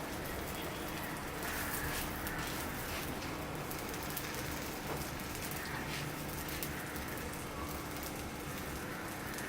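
Dosa batter of wheat and rice flour sizzling in oil on a hot griddle as its second side cooks: a steady crackling hiss.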